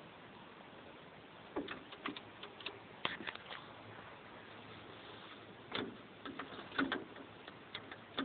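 Scattered light clicks and knocks around the Massey Ferguson 135's controls, handling noise with the tractor's engine not running.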